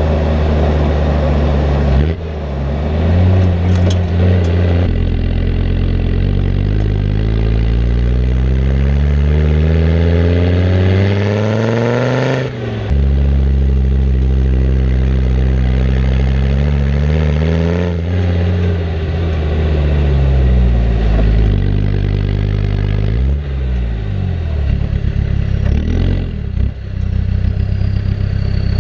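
A Land Rover turbo-diesel engine with a stainless-steel exhaust revving. Its pitch climbs slowly to a peak about twelve seconds in and drops sharply as the throttle closes, then rises and falls several more times. A short high whistle comes near the end.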